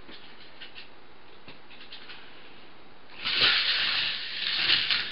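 A K'nex roller coaster train rolling along its plastic track. It starts with a few faint ticks, then comes a loud rolling rattle about three seconds in that lasts nearly two seconds.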